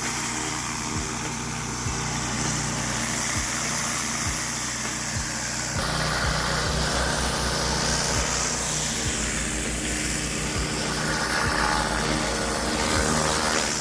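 Gas-engine pressure washer (Honda GX390 driving a triplex pump) running steadily under load, with the hiss of high-pressure water spraying onto concrete. The sound of the engine and the spray shifts about six seconds in.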